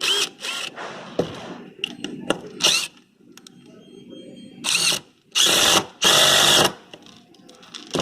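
Cordless power drill at a store test display, triggered in bursts with a whine that rises as the motor spins up. There are several short blips in the first three seconds, then three longer runs about five to seven seconds in, the last lasting close to a second.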